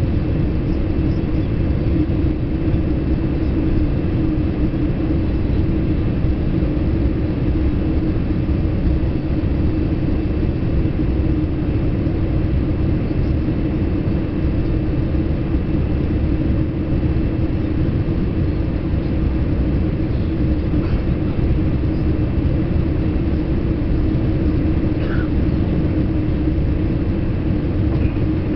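Steady cabin rumble aboard a Boeing 787-8 airliner: engine and airflow noise with a constant low hum running underneath.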